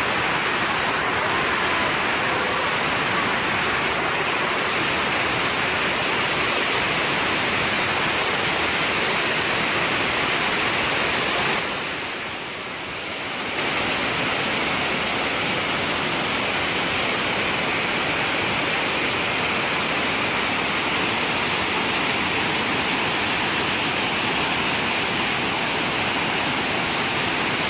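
Heavy, steady rushing of water pouring over a masonry dam's overflow spillway and churning over a weir in the channel below: the reservoir is full and overflowing after days of heavy rain. The sound dips briefly about twelve seconds in, then returns at full strength.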